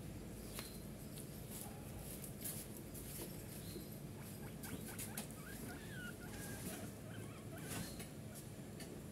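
Guinea pigs nibbling at lettuce and vegetables, a faint scatter of small crunching and rustling clicks. A few faint high chirps come in around the middle.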